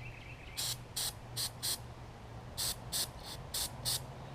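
Eight short hissing spray bursts, in two groups of four, cleaning oil off a fouled spark plug.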